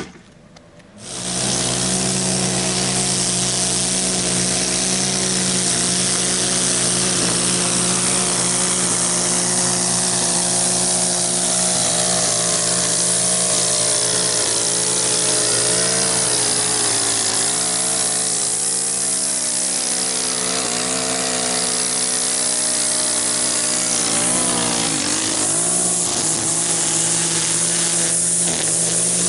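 Gas string trimmer running at high throttle, its engine pitch dipping now and then as the spinning line cuts grass along the curb edge. It comes in suddenly about a second in.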